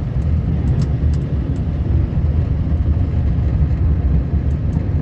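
Steady low rumble of a moving vehicle, even and unbroken.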